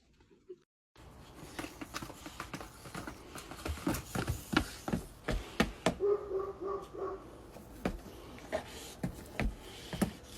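A dog giving a quick run of short whines about six seconds in, amid scattered knocks and clatter.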